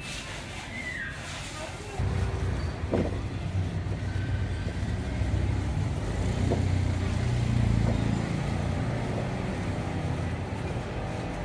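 Street traffic: a motor vehicle's engine rumbling, louder from about two seconds in.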